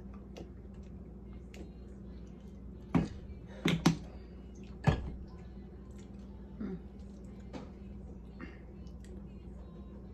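Close-up eating sounds from mini tacos: small wet mouth clicks throughout, and a cluster of four sharp crunches or snaps about three to five seconds in.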